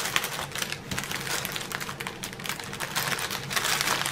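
Small plastic zip bags of round resin diamond-painting drills being handled: crinkling plastic with a quick, irregular clicking as the beads shift inside.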